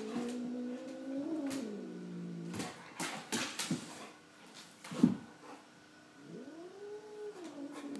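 Tortoiseshell cat letting out two long, low yowls while sparring with a dog. The first is drawn out over the opening two and a half seconds. The second rises and falls from about six seconds in. Between them come a few sharp knocks, the loudest about five seconds in.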